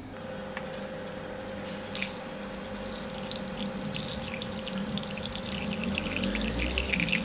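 A thin stream of water pours into a stainless steel bowl of uncooked Japanese rice, the first rinse of the rice, and grows steadily louder as the bowl fills. There is a light click about two seconds in.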